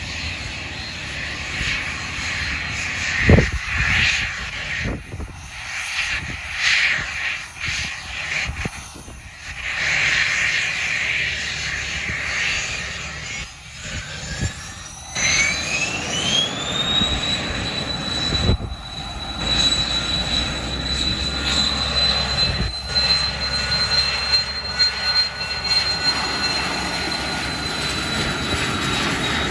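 Embraer Phenom 300 business jet's twin turbofan engines. About halfway through, their whine rises quickly in pitch as they spool up to takeoff power, then holds steady and high over a low rumble. A single sharp knock sounds a few seconds in.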